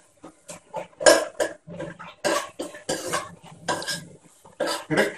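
A utensil stirring and scraping onions frying in a pan, in short irregular strokes about three a second.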